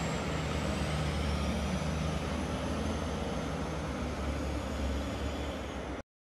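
Heavy military cargo truck driving past and away: a steady low engine drone with a faint high whine that slowly falls in pitch. The sound cuts off abruptly about six seconds in.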